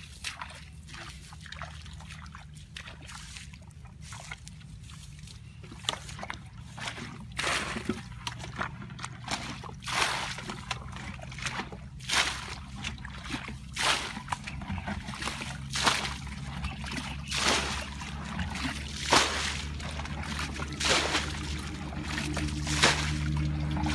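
Muddy water sloshing and splashing as a plastic bucket scoops it out of a shallow rice-field ditch and throws it aside, the ditch being bailed out. The splashes come every second or two, starting about six seconds in and growing stronger toward the end.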